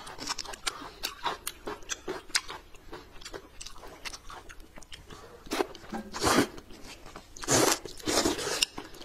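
Close-up eating: crisp crunchy bites and chewing, then several louder half-second slurps in the second half as buckwheat noodle sheets in sesame sauce are sucked in.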